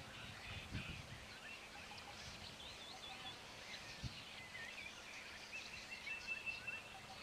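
Faint outdoor ambience with small birds chirping in short, curling calls, and a brief steady high whistled note about six seconds in.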